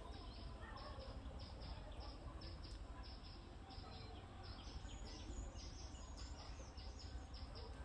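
Faint outdoor ambience: a steady low rumble under many short, high chirps coming quickly and irregularly.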